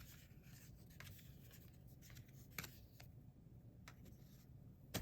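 Near silence with faint rustling and a few soft ticks of baseball cards being handled and flipped through.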